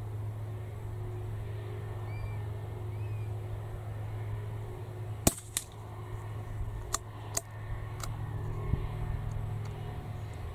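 A single .22 LR rimfire shot from a bolt-action Anschutz 1761 target rifle, a sharp crack about halfway through, followed by a few lighter metallic clicks as the bolt is worked, over a steady low hum.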